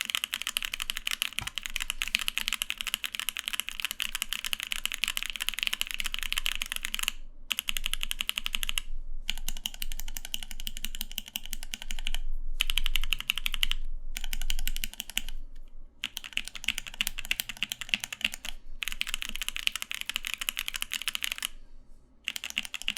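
Typing on SP Star tactile mechanical keyboard switches (full nylon housings, POM stems, 67 g springs), some lubed and some stock: rapid runs of keystroke clacks broken by short pauses about every one to three seconds. On the stock switches a little leaf crunch can be heard if you listen closely; lubing takes it away.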